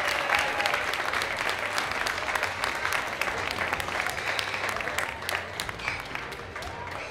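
Crowd of spectators applauding, the clapping gradually dying away.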